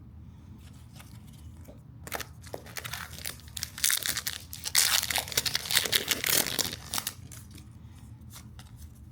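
Trading card packaging being torn open and crinkled: a few sharp crackles, then a dense burst of crinkling tears in the middle that dies away near the end.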